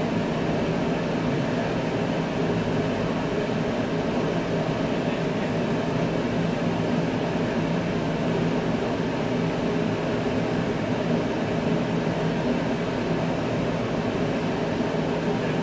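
1961 Buick's 401 Nailhead V8 running at a steady idle, an even low drone with no change in speed, after its first start in months.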